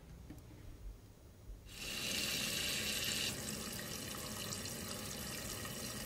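Water rushing into a toilet tank through a newly installed fill valve as the supply is turned on. It is a steady hissing flow that starts about two seconds in, sharper for its first second or so, then settles into an even fill.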